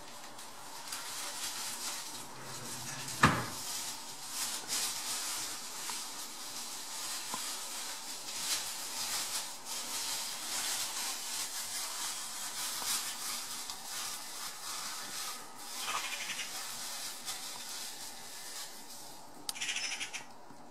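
Steady rustling hiss with many small crackles, and one sharp knock about three seconds in.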